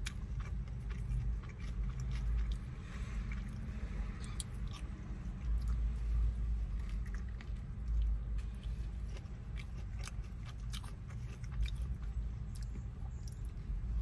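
Close-up biting and chewing of a burrito in a soft flour tortilla: many short, wet mouth clicks and smacks at an irregular pace, over a steady low rumble.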